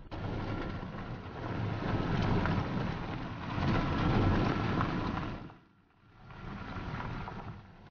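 Vehicle driving over an unpaved gravel and rock road, heard from inside the cabin: a dense rumble of tyres and engine with wind noise. It drops away briefly about five and a half seconds in, then picks up again.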